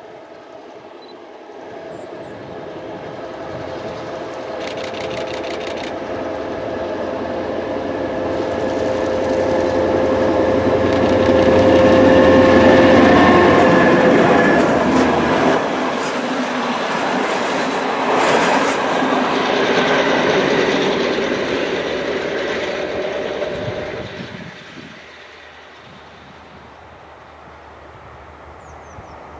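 A train passing by: it builds over about ten seconds, peaks, then fades away, with a steady hum that dips in pitch as it goes by.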